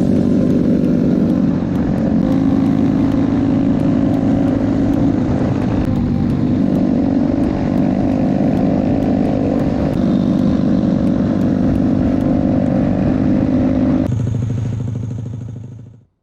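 Honda Chaly's small single-cylinder four-stroke engine running steadily while riding, with wind rush on the microphone. About fourteen seconds in it drops to a lower note, then fades out.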